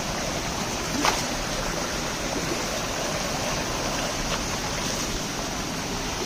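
Steady rushing of flowing stream water, with one short sharp sound about a second in.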